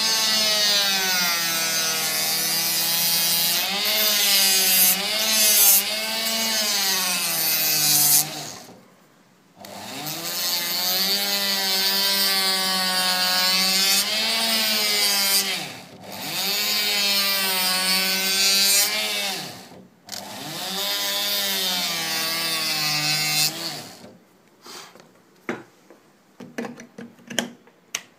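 A small electric motor-driven machine running in four long stretches with short stops between them, its pitch wavering up and down as the load changes. After the last stop there are a few scattered clicks and knocks.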